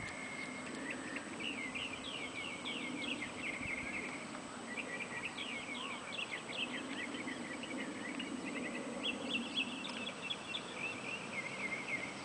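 Birds chirping in three long runs of quick, short notes, over a faint steady low hum.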